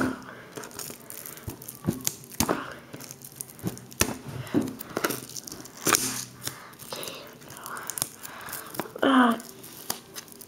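Plastic shrink wrap crinkling and tearing as it is worked off a cardboard jigsaw puzzle box, with many sharp taps and clicks from handling. Near the end comes a short, loud squeak that falls in pitch.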